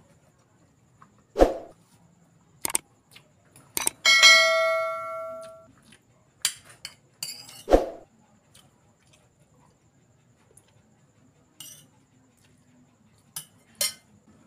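A spoon knocking and clinking against bowls during a meal, with two louder dull knocks. About four seconds in, one strike rings out like a bell and fades over about a second and a half.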